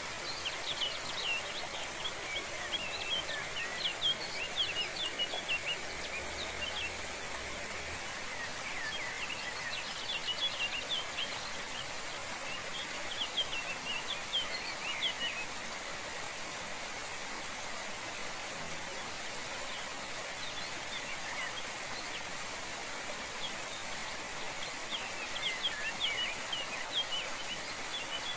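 Steady rush of falling water, with songbirds chirping in bursts of quick high calls several times over it.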